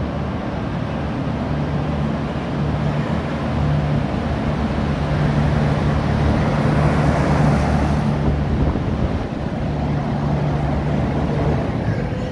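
V/Line VLocity diesel multiple unit pulling slowly into the platform, its diesel engines running with a steady low drone. The sound grows loudest about seven seconds in as the train passes beneath.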